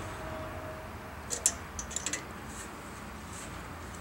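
A quick cluster of light metallic clicks from a wrench being worked on a thread tap as it cuts new threads in a stripped cylinder-head bolt hole, about a second and a half in.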